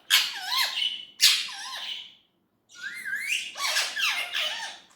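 Indian ringneck parrot vocalizing in harsh squawks and gliding, warbling notes that bend up and down, in three bursts with a short pause after about two seconds.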